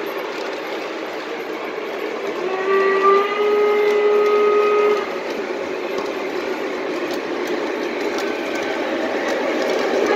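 Lionel model train with a CSX EMD SD70MAC diesel locomotive rumbling along its track, growing louder as it draws near. From about two and a half seconds in, the locomotive's sound system sounds one long chord of its horn, lasting about two and a half seconds and stepping up slightly in pitch just after it starts.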